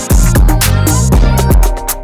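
Background music with a heavy bass and a steady electronic beat.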